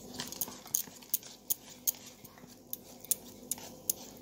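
A mixing utensil clicks against the side of a stainless steel bowl about two to three times a second as a thick semolina and curd batter is stirred to work in baking soda and water.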